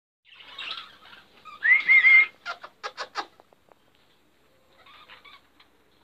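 Budgerigars chattering in an aviary: a loud rising call about two seconds in, then a quick run of short sharp chirps, dying down to faint chatter near the end.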